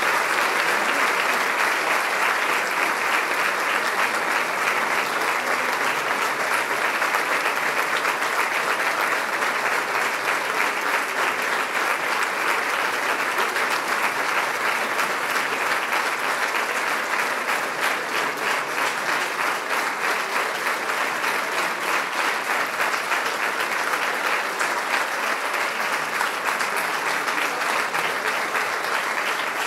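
Sustained applause from a large seated audience, steady throughout and fading a little towards the end.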